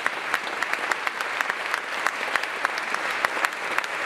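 Audience applauding: many people clapping, steady and dense.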